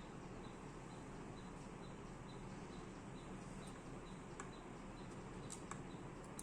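Faint small clicks of a screwdriver fastening laptop drive screws, a few in the second half, over a steady background noise with a faint high chirping that repeats about three times a second.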